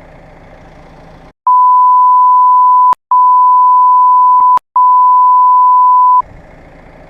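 A loud, steady 1 kHz censor bleep of about five seconds, broken twice by short gaps with clicks, replacing the original sound. Before it starts, an engine idles in the background.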